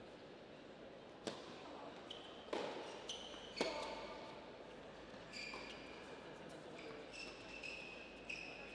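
A tennis ball struck by rackets three times, about a second apart, in a large indoor hall. Tennis shoes squeak several times on the hard court as the players move.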